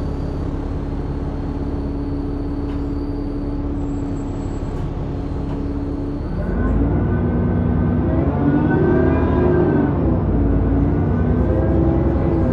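Alexander Dennis Enviro400 double-decker bus hums steadily at one pitch. About six seconds in it pulls away louder, and its drivetrain gives unusual whining tones that rise and fall in pitch as it accelerates.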